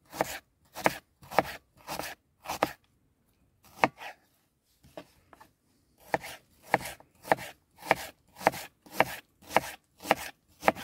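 Kitchen knife slicing an onion into half-rings on a wooden cutting board: a steady run of cuts, each ending in a tap on the board, a little under two a second. The cuts slow to a pause partway through, then pick up again at the same pace.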